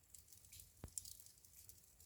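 Wood fire in a fireplace crackling faintly, with scattered small pops and one sharper pop a little under a second in.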